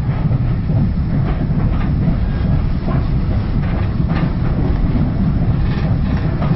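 Inside a passenger railway carriage on the move: the steady low rumble of the wheels on the track, with a few faint clicks as the wheels cross rail joints.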